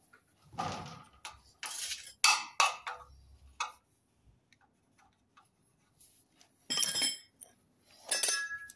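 A string of short knocks and clicks from tools handled against a hollow painted metal post while a drill hole is marked on it. Two ringing metallic clinks come about seven and eight seconds in.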